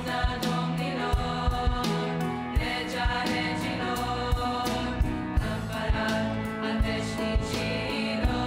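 Girls' choir singing a Romanian Christian hymn in harmony, with piano accompaniment and a beat of sharp percussive hits.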